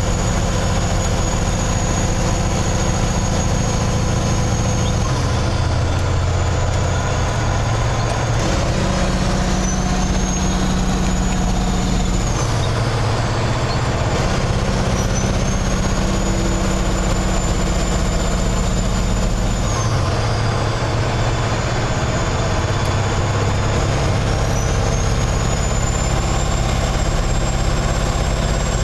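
Kenworth tanker truck's diesel engine running, heard from the cab. A high whine drops three times and climbs back gradually after each drop, with the engine note shifting at the same points.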